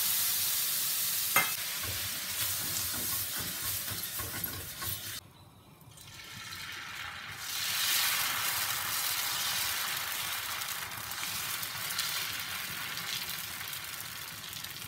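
Water sizzling and hissing on a hot dosa tawa, with one sharp click about a second and a half in; the hiss dies away after about five seconds. After a short lull the sizzle rises again, steady, as moong dal dosa batter is poured and spread on the hot tawa.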